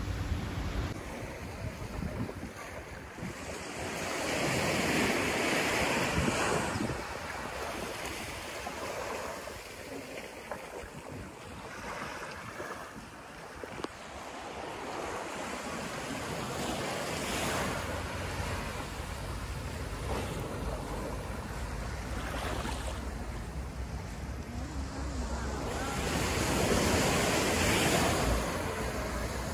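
Small waves breaking and washing up a sandy beach, with wind rumbling on the microphone. The wash swells loudest twice, a few seconds in and again near the end.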